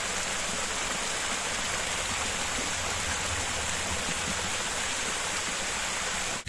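A small mountain brook flowing, a steady even rush of water.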